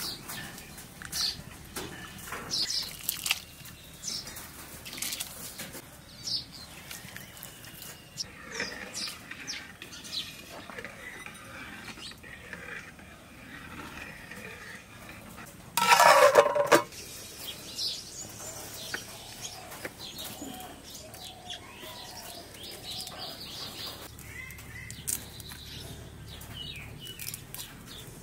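Scattered clinks and scrapes of an aluminium cooking pot, metal bowl and ladle as a pot is filled and stirred, with small birds chirping. About halfway through comes one loud, sharp sound lasting about a second.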